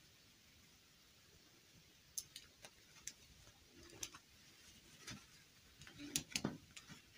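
Light clicks and taps of plastic fashion dolls being handled and stood up in a row, scattered through the second half, with a cluster of louder taps about six seconds in.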